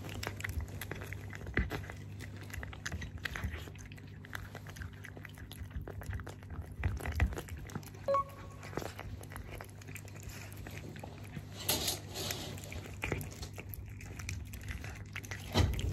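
Tabby-and-white cat eating wet food from a bowl close up: irregular wet chewing, lapping and smacking clicks as it bites and chews the chunks.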